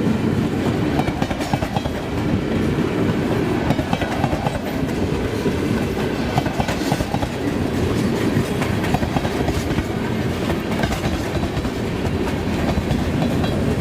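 Freight train cars, a string of propane tank cars, rolling past steadily, wheels clacking and rumbling over the rail joints.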